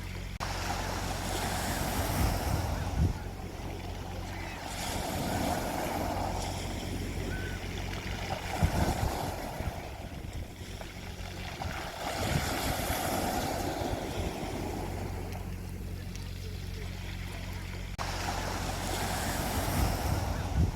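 Sea waves breaking and washing up a beach, swelling and fading in turn every few seconds. A steady low hum runs underneath.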